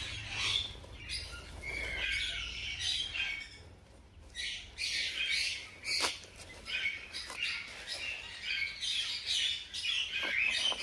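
Newborn hamster pups squeaking: many short, high chirping squeaks in quick runs, with a pause about four seconds in. A couple of sharp rustles of seed-husk bedding come as the mother hamster noses through it.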